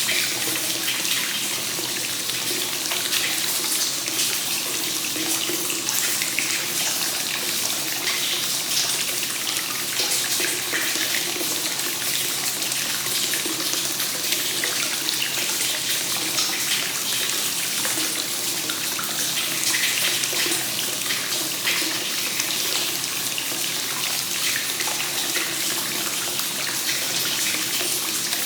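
Hot-spring water flowing continuously from the spout into a stone onsen bath, a steady splashing and trickling into the filled tub.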